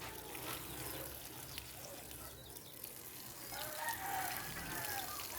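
A rooster crowing in the distance, one drawn-out wavering call starting about three and a half seconds in, over faint background noise.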